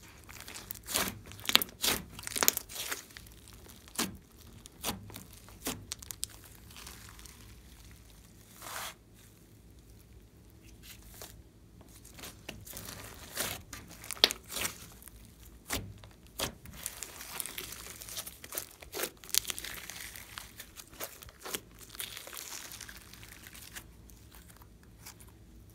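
Glossy slime being squeezed, folded and stretched by hand: irregular sticky crackles and sharp pops, with a denser run of crackling past the middle.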